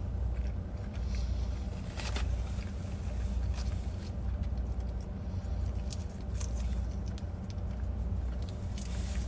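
Steady low rumble of a car heard from inside the cabin, likely the engine idling, with a few brief faint rustles or clicks.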